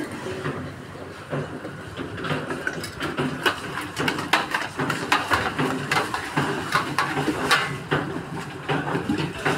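Steel utensils clinking and clattering: a flat steel ladle knocking against stacked steel plates and bowls as cream is scooped and served, in a quick irregular run of sharp clinks over a steady low background din.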